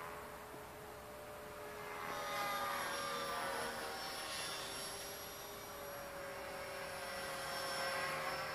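Blade 450 X electric RC helicopter in flight: a whine from the motor and spinning rotor, several tones sliding slowly in pitch. It grows louder about two seconds in and again near the end as it comes closer.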